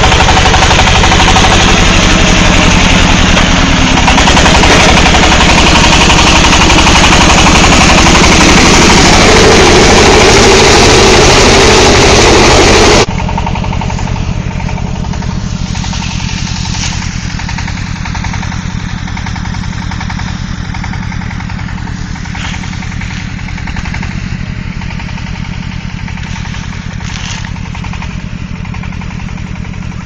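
Mini rice combine harvester's Greaves 17.2 hp diesel engine running with a rapid clatter, loud and mixed with a full mechanical din at first. About 13 seconds in the sound drops abruptly to a quieter, steady diesel running.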